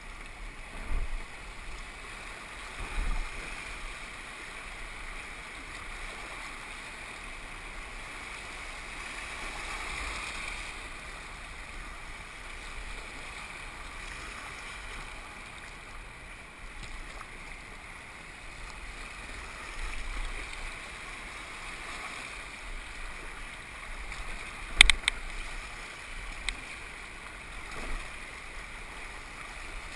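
Kayaks paddling on a river: steady water noise around the boats, with a few dull thumps and one sharp knock about 25 seconds in.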